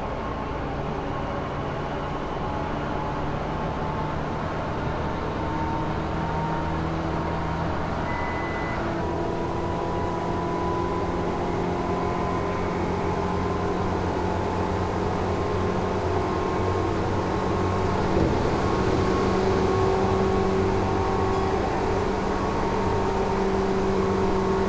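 Tokyu 8500 series electric train running, heard first from the driver's cab and then, about nine seconds in, from its DC traction motors: a steady motor whine with a low hum over the rumble of the wheels on the rails, slowly rising in pitch as the train gathers speed. A single knock about eighteen seconds in.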